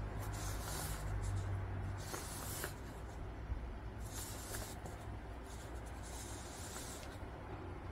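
Paper cups slid and shuffled across a quilted fabric mat: several soft scraping swishes in the first five seconds, then quieter.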